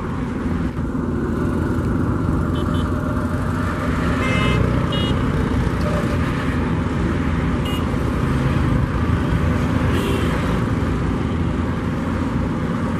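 Steady low drone of a river passenger launch's diesel engines under way, over rushing water. A few brief, faint high tones come through now and then.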